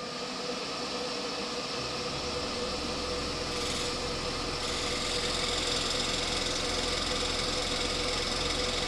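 Scroll saw running, its blade reciprocating through a paper-backed plexiglass gear blank as it is fed along the pattern line: a steady motor hum with a hiss of cutting that grows louder about five seconds in.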